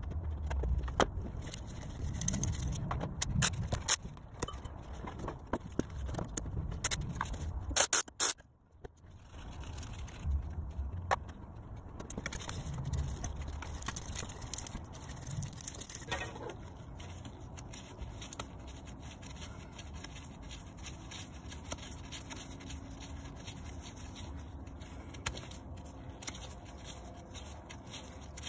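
Scraping, rubbing and irregular light clicks of a gloved hand working in around a Honda Civic's crankshaft timing sprocket and water pump, with a louder knock just before eight seconds in.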